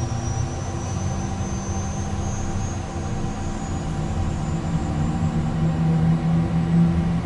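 Citation business jet's turbofan engine spooling up during its start just after light-off: a thin high whine slowly rising in pitch over a steady low rumble, with a lower tone climbing and growing stronger in the second half as the engine accelerates toward idle.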